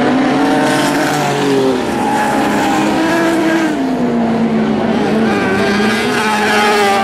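Lightning sprint car engines racing on a dirt speedway, several cars at once, their pitch rising and falling as the drivers lift off and accelerate through the turns.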